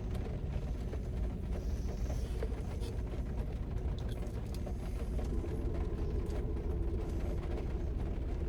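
Steady low rumble inside a parked car, with scattered small clicks and a faint steady hum.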